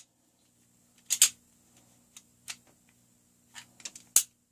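Sharp metal clicks and clacks of a KWC Colt Commander CO2 BB pistol's slide and parts being worked by hand during field stripping: a loud double click about a second in, a few single clicks, a quick cluster, and one sharp click near the end.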